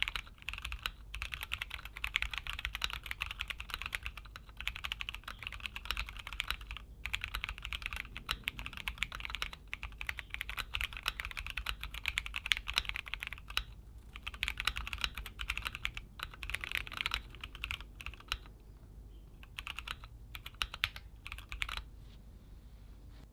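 Continuous fast typing on a Keychron Q1 Pro, an aluminium-bodied mechanical keyboard: a dense run of key clacks with short pauses, thinning out near the end.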